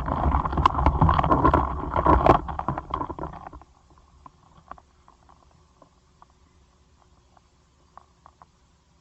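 Close-miked Caucasus beetles (Chalcosoma chiron) during mating: a dense, low scraping and rubbing rumble with sharp ticks for about three and a half seconds, then only faint scattered ticks.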